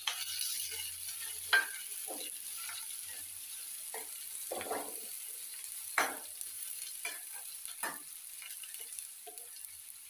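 Onions, dried red chillies and dals sizzling in hot oil in a steel kadai, the tempering (oggarane) for chitranna, under a steady hiss. A steel ladle scrapes and clinks against the pan as it is stirred, with the sharpest clinks about one and a half seconds and six seconds in.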